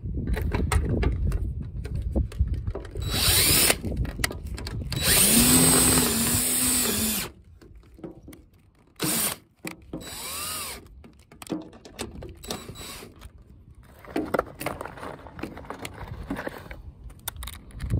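Cordless drill driving hex-head screws through a plastic solar panel mounting bracket into the panel frame, running in short bursts. The longest burst lasts about two seconds, its motor pitch wavering under load, and a brief rising whir comes about ten seconds in.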